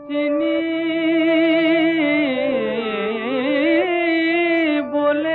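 Devotional Indian music: a voice holds long sung notes with vibrato over a steady low drone. The melody glides down and back up in the middle, with a brief break between phrases near the end.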